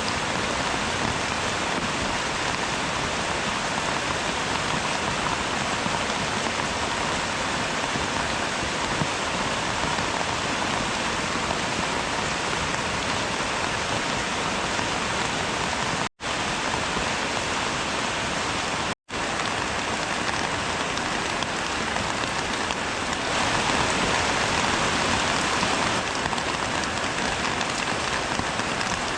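Steady rain falling and pattering on surfaces, a dense even hiss that swells a little about two-thirds of the way through. The sound cuts out for an instant twice, a little past the middle.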